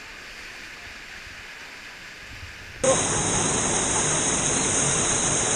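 Rushing whitewater of a swollen mountain river pouring down a rock waterfall chute. It is a steady rush, fairly distant at first, then about three seconds in it jumps to a much louder, closer roar of water.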